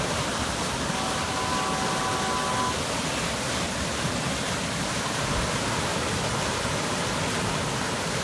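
Flash-flood debris flow on Hermosa Creek: a swollen creek of black, mud-laden water carrying debris, rushing with a steady, unbroken noise. About a second in, a faint steady tone sounds for under two seconds.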